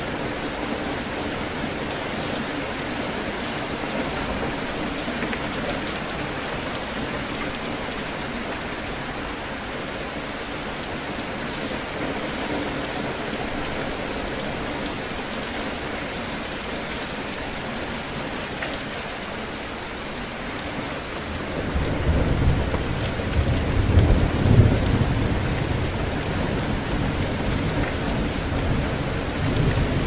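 Heavy rain pouring steadily onto a flooded paved path and standing water. About two-thirds of the way through, a low rumble of thunder swells, peaks briefly, then dies down.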